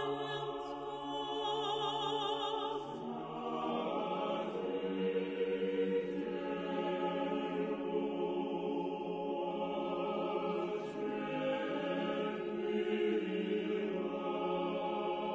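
A choir singing a slow church chant in long, held notes and chords.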